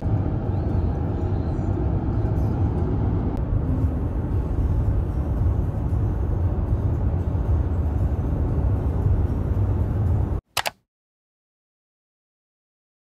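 Car driving on a motorway: a steady low rumble of road and engine noise, heard from inside the car. It cuts off suddenly about ten seconds in.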